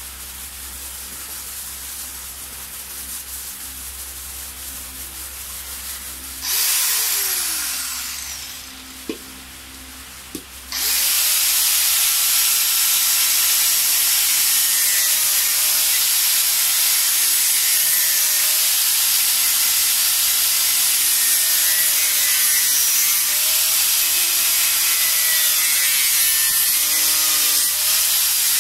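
Angle grinder cutting the excess fiberglass edge off a helmet shell. It is first switched on briefly and winds down with falling pitch, then is started again a few seconds later and runs steadily, its pitch dipping and recovering as the disc bites into the fiberglass.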